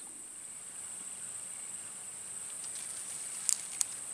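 A steady high-pitched chorus of insects, such as crickets, buzzing continuously in the swamp. Two short sharp clicks come close together near the end.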